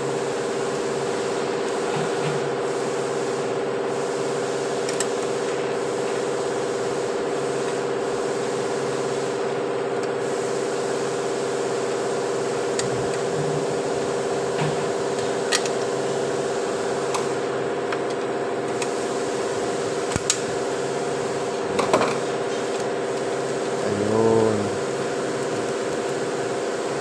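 A steady machine hum with a constant pitched drone, with a few light metallic clicks as parts are fitted by hand into a CVT transmission case.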